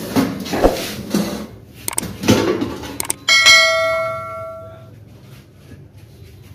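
Stainless-steel parts of an empty electric deep fryer being handled: rattling and scraping metal with a few clicks, then a piece is struck about three seconds in and rings like a bell for about a second and a half.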